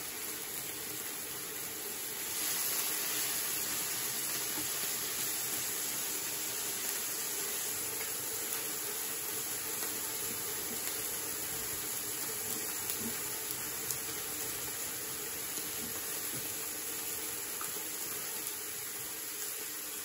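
Food sizzling on a hot round electric tabletop grill, a steady hiss that gets louder about two seconds in as shredded carrots go onto the pan.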